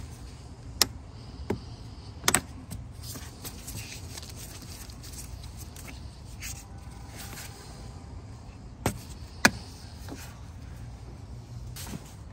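Scattered sharp plastic clicks and handling noise as the cap and seal of a new plastic engine-oil bottle are worked open. The clicks come in the first few seconds and again about nine seconds in, over a steady low background hum.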